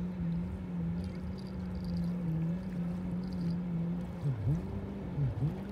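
A steady engine drone. Near the end its pitch repeatedly dips sharply and comes back up, about once a second.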